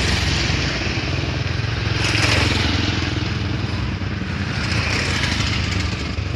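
Road traffic: engines running steadily, with vehicles passing close about two seconds in and again near five seconds.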